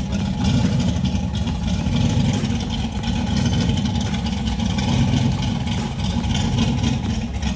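A vehicle's engine running steadily with a constant low rumble.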